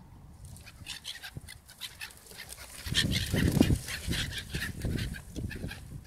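A flock of black-headed gulls calling harshly and rapidly over each other as they squabble for food. A loud, low buffeting rumble joins in about halfway through.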